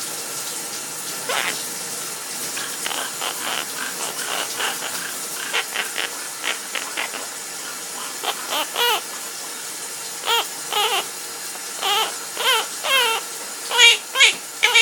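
A parrot singing: a run of short whistled notes, many of them bending up and down in pitch, coming louder and closer together toward the end, over the steady hiss of a running shower.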